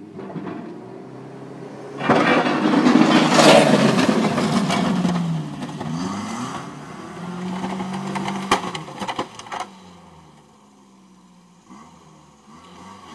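Pickup truck engine revving hard as the truck drives up a snowbank pushing snow, loudest about two seconds in. The engine eases and revs again a few seconds later, with a couple of sharp knocks, then fades as the truck moves away.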